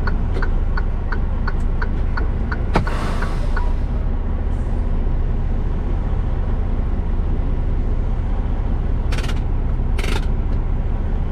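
Semi truck's engine idling with a steady low rumble, heard from inside the cab. A fast ticking, about four a second, stops about three and a half seconds in. A sharp click comes with a hiss of air, and near the end there are two short air hisses.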